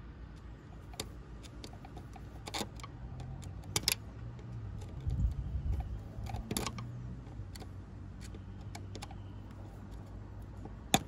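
Scattered light metallic clicks and taps of hand tools and metal parts being handled around the hose clamp, with a brief low rumble midway and the sharpest click near the end.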